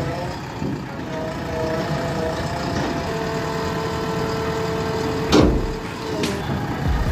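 Heavy machine's engine running steadily, with one loud clank about five seconds in.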